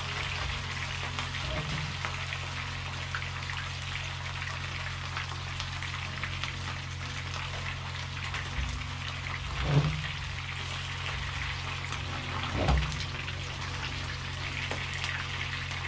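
Pieces of marinated fish frying in a pot of hot oil, a steady sizzle over a low hum, with two short knocks about ten and thirteen seconds in.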